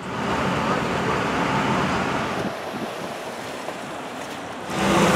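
Street traffic noise, an even hiss with wind on the microphone, which drops off about halfway through. Near the end a louder car engine comes in with a steady hum.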